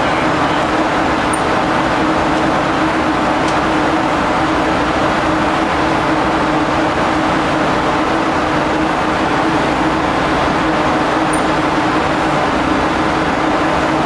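Steady, loud drone of ship's deck machinery, an even roar with a constant low hum that does not change.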